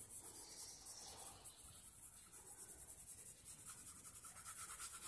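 Faint scratching of a soft B graphite pencil on paper in quick back-and-forth shading strokes.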